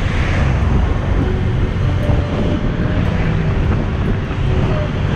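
Motorbike ridden at road speed, heard from the bike: a steady, heavy wind rumble on the microphone with the engine's faint, wavering hum running underneath.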